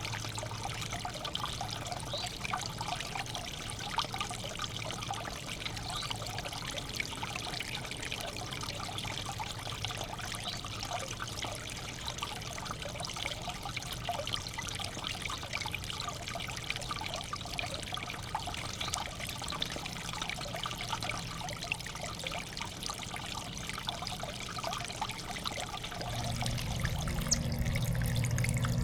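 Water trickling and splashing steadily into a backyard bird bath, a continuous patter of small drops. A low hum grows louder near the end.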